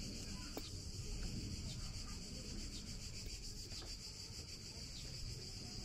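Insects shrilling in a steady high band, over a low, rough rumble with a few faint ticks.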